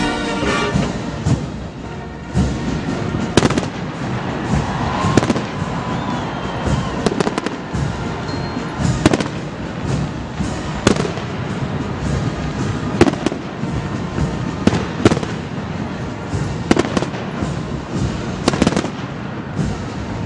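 Fireworks display: shells bursting with sharp loud bangs roughly every two seconds over continuous crackling.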